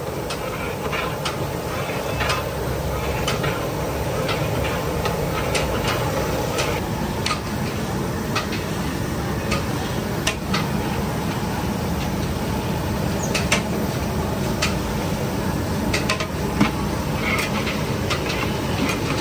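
Metal utensil clinking and knocking against a large cooking pot in irregular sharp strikes, over a steady din of street and kitchen noise.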